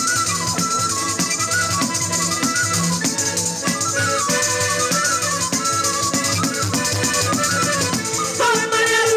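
Live folk dance music: a hand-beaten frame drum with jingles keeps a fast, steady beat over low bass notes and a short melody line that rises and falls again and again. Near the end a voice comes in at the microphone.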